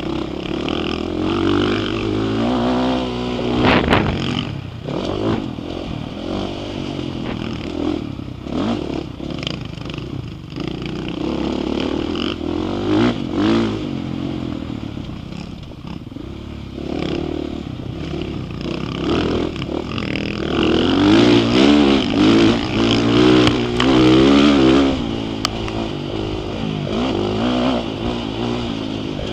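Dirt bike engine revving up and down over and over as it is ridden hard around a motocross track, loudest for a few seconds past the middle, with a few sharp knocks as the bike goes over rough ground.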